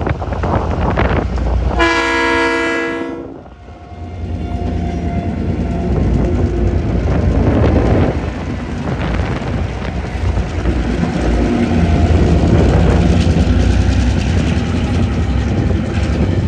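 Diesel locomotive horn sounding one blast about two seconds in, lasting about a second and a half, from a TasRail DQ-class-hauled empty ore train at a level crossing. The train then rumbles steadily past, with wind buffeting the microphone.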